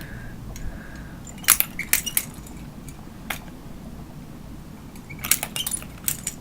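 Sharp metallic clicks and clinks of a balisong's handles and a Zippo lighter being flipped and snapped during a knife-and-lighter trick: a quick cluster about a second and a half in, a single click around the middle, and another flurry near the end.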